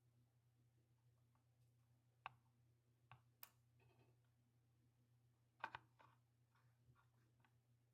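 Near silence with a low steady hum and a few faint, sharp clicks of small camera parts and tools being handled during reassembly, the loudest about two thirds of the way through.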